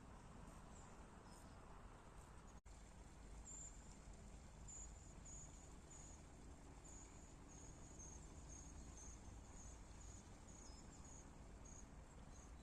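Quiet summer outdoor ambience: an insect chirps in short, high-pitched pulses, about once or twice a second, starting a few seconds in, over a faint steady hiss. There is a momentary break in the sound near the start.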